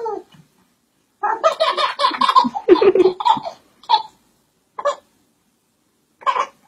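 Baby laughing in bursts: a run of quick giggles about a second in, then a few short single laughs spaced apart.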